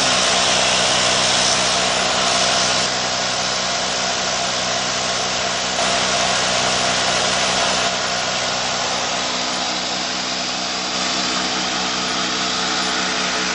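A 1981 Ford Granada's 4.2-litre V8 running steadily on a newly fitted Motorcraft 7200 VV carburetor, with a strong hiss over the engine note.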